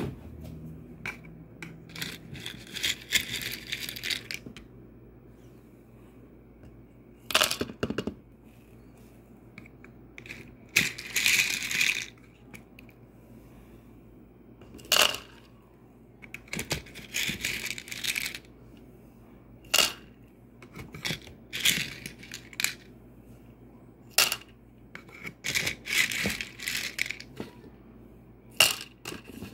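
Handling of a small pot of beans and miniature toy cookware: sharp clicks and clinks at intervals, with several rattles lasting a second or two.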